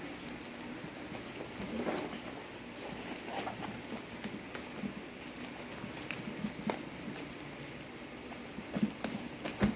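Scissors snipping and scraping through a parcel wrapped in plastic packing tape and paper, with irregular small clicks and crinkling rustle of the tape and wrapping.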